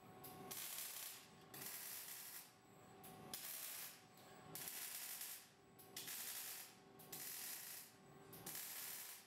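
Robotic welding torch building up metal a weld at a time: bursts of crackling, hissing arc about a second long, separated by short pauses, repeating about every one and a half seconds.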